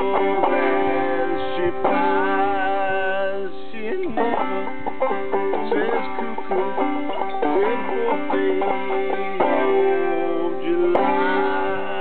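Open-back banjo played solo in an old-time style, a steady stream of plucked notes with no words sung.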